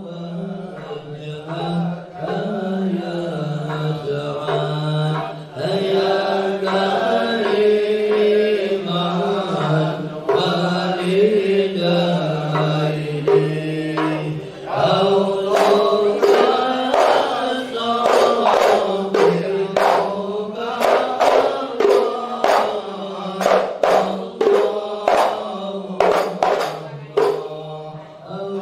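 A group of men chanting sholawat in unison, in a slow, drawn-out melody. About halfway through, sharp percussion beats join in, about one or two a second.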